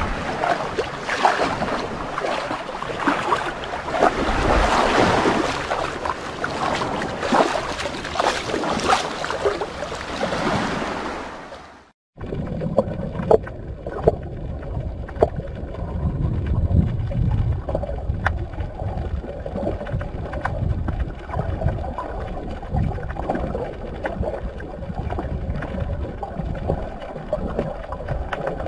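Sea water washing and splashing in the shallows, with wind on the microphone. About twelve seconds in it breaks off and gives way to a muffled underwater rumble with scattered clicks.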